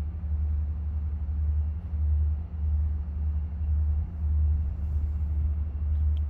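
A low, droning rumble that swells and fades about once a second, with a fainter steady hum above it. It is the unexplained noise in the air that the listener first took for distant trains.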